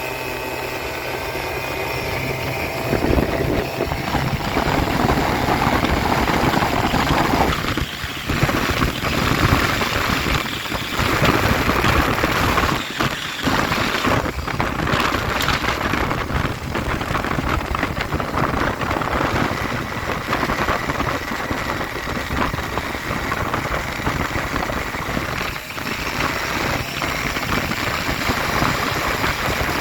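Two-stroke scooter engine, a Honda Zuma with a Malossi 70cc big-bore kit being broken in, running under way. Heavy wind buffeting on the microphone mostly covers it. The engine is heard pulling up in pitch in the first couple of seconds, and the wind rush dips briefly a few times.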